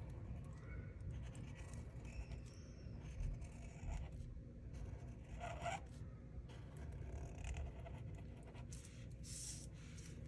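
Black felt-tip marker rubbing over paper in short, irregular strokes as outlines are drawn, over a low steady rumble.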